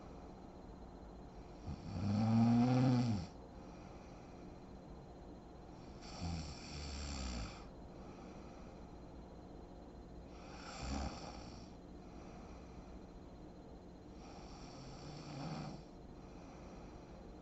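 A sleeping woman snoring, four snores in a slow rhythm about four seconds apart. The first, about two seconds in, is the loudest and has a clear pitch; the others are softer and rougher.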